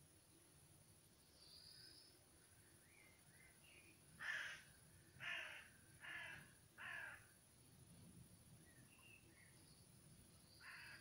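A bird giving four harsh calls, each just under half a second and about a second apart, in the middle, and one more at the very end, with faint high chirps of small birds around them.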